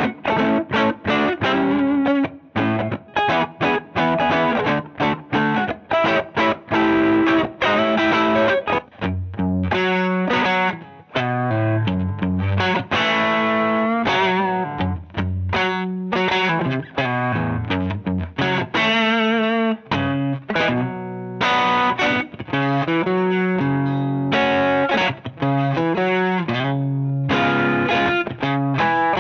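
Electric guitar played through the Demon FX Overdrive DF8, a Tube Screamer-style overdrive, giving a mildly distorted tone. Short, choppy chord stabs with brief gaps give way about a third of the way in to a fuller riff with held notes.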